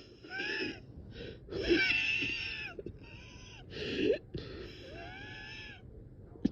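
A person's laboured breathing with a whistling wheeze: three long, strained breaths with a sharper catch of breath between the second and third. The sound of someone short of breath, unable to get a full deep breath.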